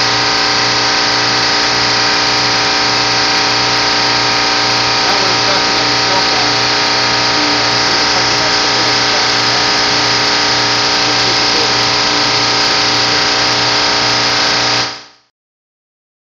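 Large chiller running loud and steady, a dense machine noise with many steady tones over a low hum, with a voice faintly buried in it. It cuts off suddenly near the end.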